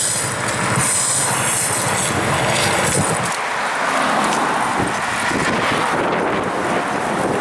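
Steady rush of road traffic noise heard from a moving bicycle, with wind and motion noise on the camcorder's microphone.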